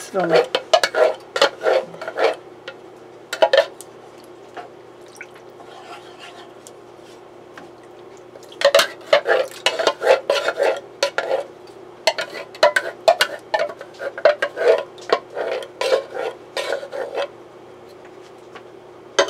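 Wooden spatula scraping and knocking against a frying pan as cream of mushroom soup is stirred into ground chicken, mushrooms and broth. There are short bursts of strokes at first, a pause, then a long run of quick scrapes and taps from about eight seconds in until near the end, over a faint steady hum.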